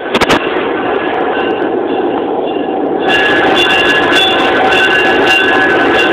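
Diesel locomotive moving slowly along the track at close range, its engine and wheels on the rails, with ringing tones from the rolling stock. It starts abruptly with a few sharp clicks and grows louder and brighter about three seconds in as the locomotive comes alongside.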